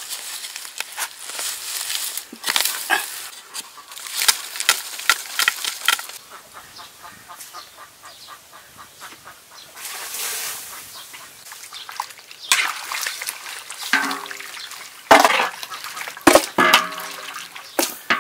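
Crunching and scraping of dry soil as a stick digs into a frog burrow, then a splash of water in a large metal wok. Near the end, a few short pitched animal calls mixed with knocks and clatter.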